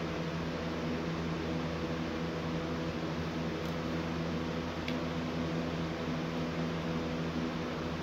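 Steady mechanical hum of a fan or appliance in a small room, with a few fixed tones over a whirring noise. Two faint clicks come near the middle, as small Lego parts are handled.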